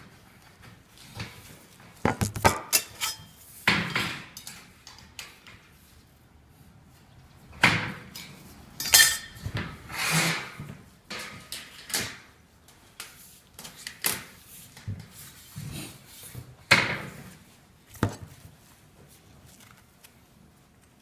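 Sheet-metal flashing being handled and worked by hand: irregular clanks and knocks mixed with short scrapes, some sharp and some drawn out, with brief pauses between.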